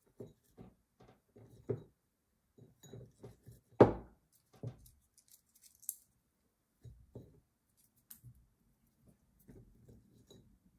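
Soft taps and faint rustling of crow garlic heads being handled and pressed down into a glass jar, with one louder knock about four seconds in.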